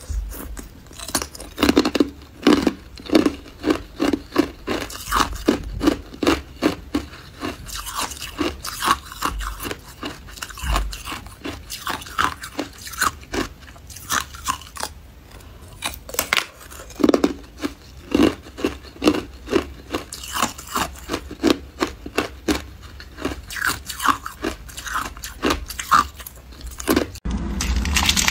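Hard clear ice being bitten and chewed, a long series of sharp, loud crunches coming about two a second, with brief pauses between bites.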